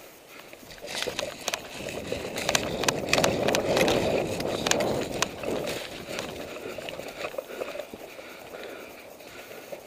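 Close-up footsteps of someone running over a forest floor, with clothing and gear rustling and knocking. A scatter of sharp, irregular clicks and snaps comes between about one and five seconds in, the loudest part, then it settles to softer steps.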